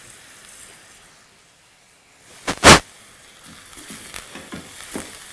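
Onions frying in oil in a saucepan: a faint sizzle, a sharp loud knock about two and a half seconds in, then crackling and clicking as a wooden spoon stirs the pan.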